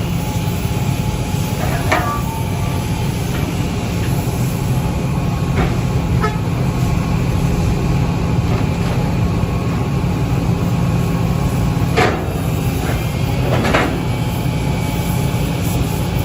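Heavy machinery running with a steady low hum, broken by a few sharp metallic clanks, the loudest about twelve seconds in.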